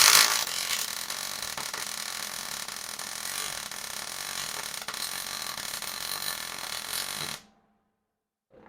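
Electric arc welding a bead on the steel feed table: a steady crackling hiss, loudest in its first second, that cuts off abruptly about seven seconds in when the arc is broken.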